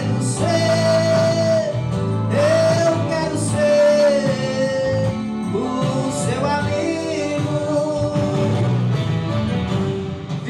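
A man sings a gospel song into a handheld microphone, amplified over instrumental accompaniment, holding long notes.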